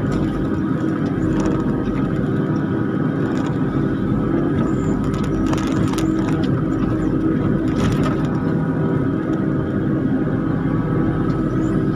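Kubota KX91-3 mini excavator's three-cylinder diesel engine running steadily as its grapple works a pile of rubberwood logs, heard from the operator's seat, with a few short knocks about halfway through.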